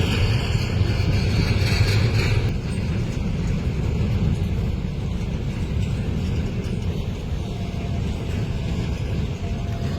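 The two-stroke V12 diesel engines of a pair of EMD G22 locomotives working hard under load, giving a deep, steady rumble. A higher hiss fades out about two and a half seconds in.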